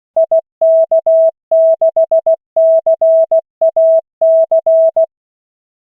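Morse code at 16 words per minute from the LCWO.net online trainer: a single steady mid-pitched beep keyed in dots and dashes, sending a callsign for copying practice. It stops about five seconds in.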